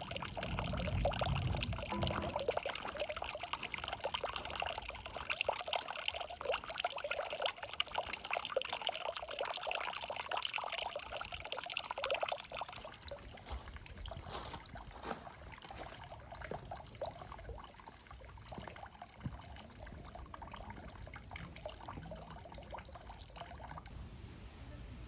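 Water pouring and trickling steadily. From about halfway it becomes quieter and thinner, with separate drips heard through the flow.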